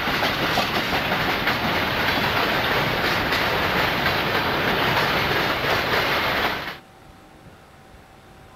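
Intermodal freight train's cars rolling past at close range: a loud rushing rumble with wheels clicking over the rail joints. About seven seconds in it cuts off abruptly to a much quieter low hum with a faint steady tone.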